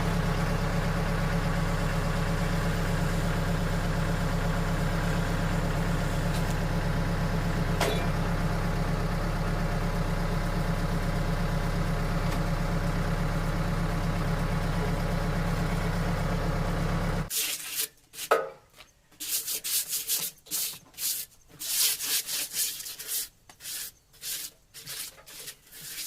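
An engine running steadily at a constant speed, which cuts off suddenly about two-thirds of the way through. Irregular scraping and knocking sounds follow.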